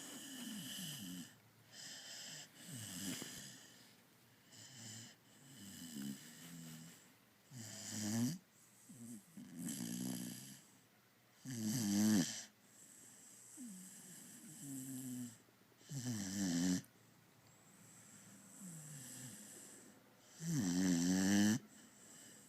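Dog snoring in a steady rhythm, about a dozen rattling, pitched snores one to two seconds apart, like a human snorer. The loudest come about halfway through and near the end.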